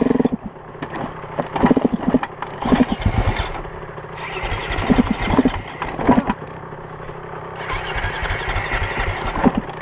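KTM enduro dirt bike engine running and revved in short throttle blips as the stuck bike is worked free of the grassy bank.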